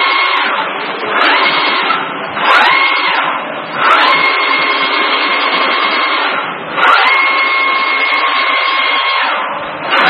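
Flatbed laser cutter's gantry motors whining as the head moves over fabric, over a steady rushing noise. Each move starts with a rising pitch that levels off into a steady tone. New moves begin about four times, some of them lasting a few seconds.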